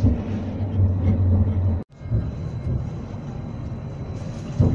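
Edinburgh tram, a CAF Urbos 3, running along the street as heard from inside the car: a steady low hum and rumble. It drops out abruptly for a moment about two seconds in, then the rumble resumes a little quieter, with a knock near the end.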